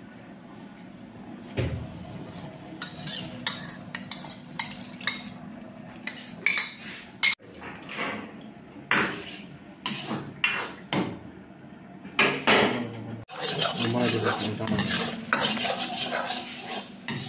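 Metal ladle clinking and scraping against a steel wok as a thin sauce is stirred, in a string of sharp knocks. The scraping and clatter get denser near the end.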